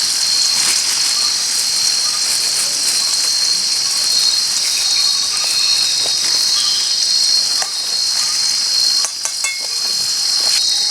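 Night insect chorus: a steady, high-pitched buzzing of jungle insects, with a few scattered clicks and knocks near the end.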